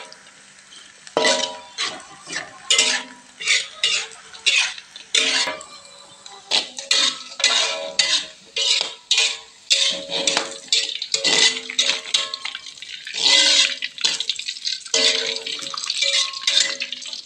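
Metal spatula and slotted skimmer clanking and scraping against a metal wok as fried tempe is stirred and lifted out of the oil: irregular clanks, about one or two a second, each with a short metallic ring.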